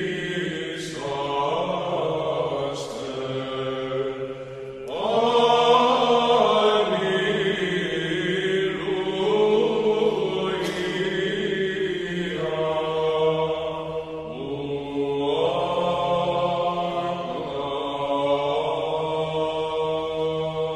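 Background music of slow, chant-like singing, with long held notes that overlap and glide from one pitch to the next.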